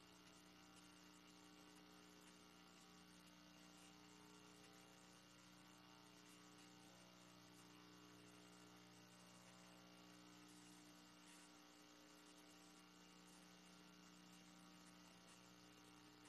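Near silence: only a faint steady hum with a light hiss.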